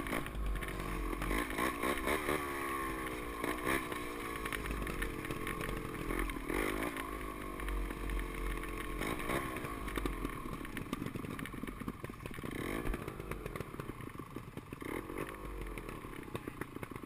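Off-road dirt bike engine on a trail ride, the revs rising and falling again and again as the throttle is worked over rough ground, with knocks and clatter from the bike. In the last few seconds the engine note drops and steadies as the bike slows.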